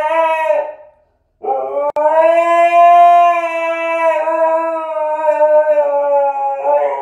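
Siberian husky howling: a howl that breaks off under a second in, then after a short pause one long, steady howl of about six seconds.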